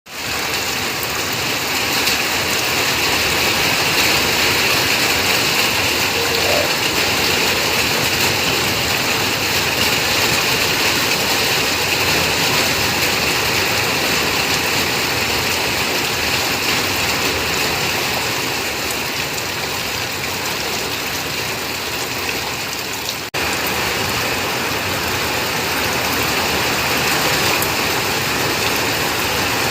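Steady heavy rain falling, a continuous loud hiss, with a momentary break about three-quarters of the way through.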